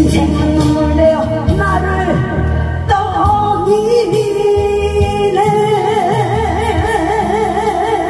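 Song with a sung melody over steady accompaniment. In the second half the singer holds one long note with a wide vibrato.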